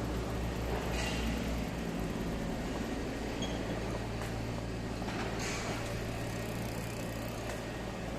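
Street ambience dominated by a motor vehicle's engine running at idle, a steady low hum.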